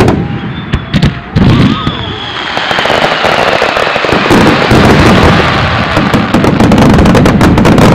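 Fireworks finale barrage: a few separate loud shell bursts in the first second and a half, then bursts and crackle in quick succession merging into a dense, steady run of bangs. A high whistling tone slides slowly downward over the first few seconds.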